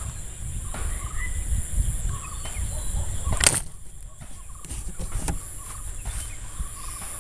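A rubber-band fishing slingshot (thettali) fired with one sharp snap about three and a half seconds in. Behind it run faint short animal calls and a steady high whine.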